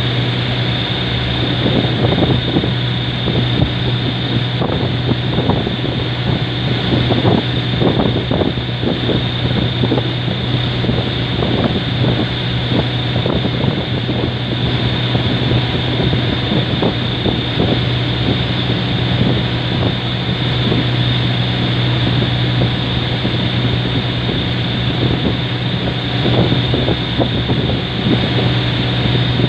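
Boat engine running steadily with a constant low drone, with wind buffeting the microphone.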